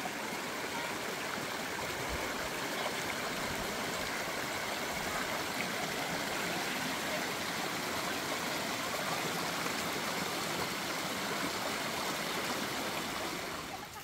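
Small rocky stream rushing over stones, a steady, even wash of running water.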